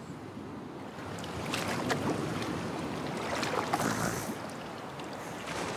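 Sea ambience for a sailing ship: a steady wash of wind and waves, with a few faint brief sounds over it.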